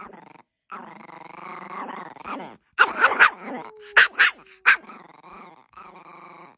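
Chihuahua grumbling and growling in a long, wavering moan, then giving a few sharp barks in the middle before grumbling on more quietly. It is protesting at having her stick taken away.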